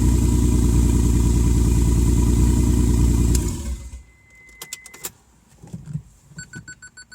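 Freshly rebuilt Mitsubishi 3000GT 3.0 V6 running on its first start, loud and raw with no exhaust manifolds or downpipe fitted, then shut off about three and a half seconds in. A few clicks follow, then a quick run of short electronic beeps near the end.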